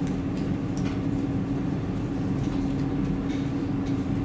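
Steady low hum of room noise with a constant tone, with a few faint clicks.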